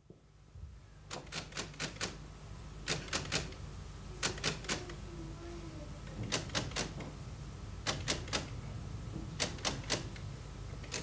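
Train wheels clicking over rail joints in regular groups of about three, roughly every one and a half seconds, over a steady low hum.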